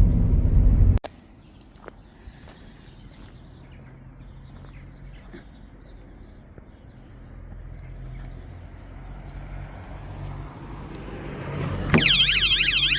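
A low vehicle rumble cuts off abruptly about a second in, leaving a quiet stretch with a faint hum and a few light chirps. Near the end a loud electronic warbling tone starts suddenly, its pitch sweeping rapidly up and down.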